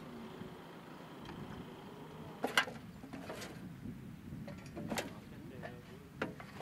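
Shovels and picks digging into dry soil and stones, with about four sharp strikes a second or so apart; the loudest comes about two and a half seconds in.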